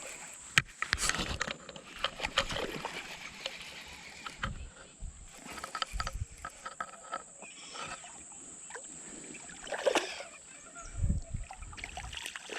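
Water splashing and lapping, with scattered sharp clicks and knocks from handling fishing gear, and a louder splash about ten seconds in.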